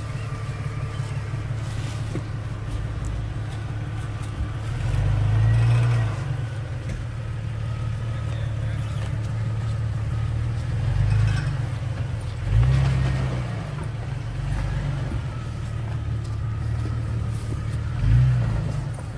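Jeep Cherokee XJ engine running at low crawling revs as the Jeep climbs over logs, rising in four short throttle surges: about five seconds in, twice between eleven and thirteen seconds, and near the end.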